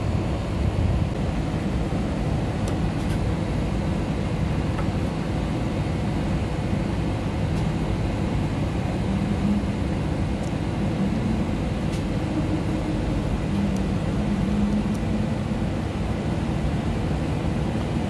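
Steady low drone of running machinery, with a faint hum that swells and fades in the middle, and a few light clicks as a screwdriver works the terminal screws of a power module.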